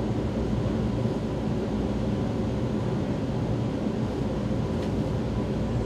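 Steady low hum and rumble inside a Vienna U-Bahn line U2 car standing at a station platform.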